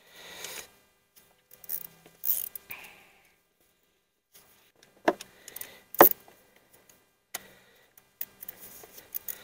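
Hand tools and gloved hands working on the valve cover bolts of a Mercedes M112 engine: scattered small metallic clicks and rubbing, with a quiet spell in the middle and two sharper knocks about five and six seconds in.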